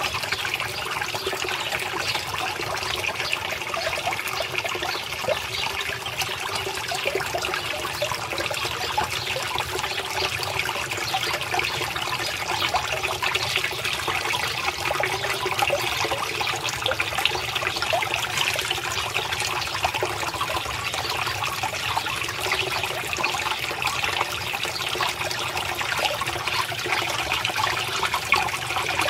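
Water trickling and splashing steadily into a small fish pond, a continuous patter of falling water with no pause.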